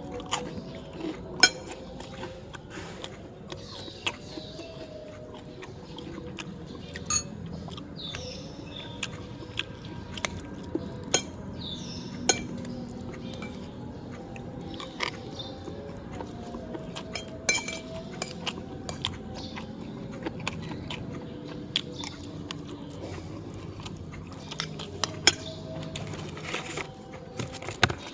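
Eating at a meal of beef curry and fried tempeh: chewing, with scattered sharp clinks of a utensil against a plate, over a steady low hum.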